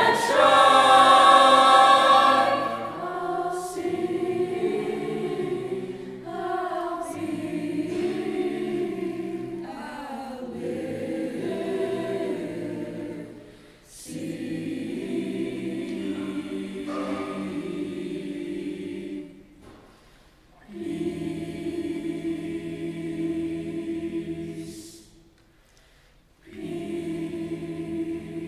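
Mixed-voice choir singing unaccompanied: sustained chords sung in phrases, loudest at the start, with brief breaths between phrases about 20 and 26 seconds in.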